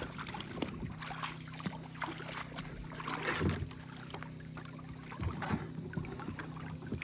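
Kayaks and paddles being handled, with irregular knocks, scrapes and rustles, over a steady low hum.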